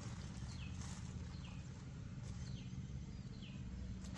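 A bird's short falling chirp, repeated about once a second, over a low steady rumble.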